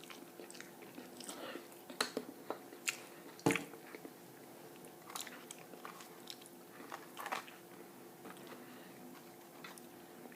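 Close-up eating sounds: a person chewing with scattered mouth clicks and a few sharp bites, the loudest about three and a half seconds in.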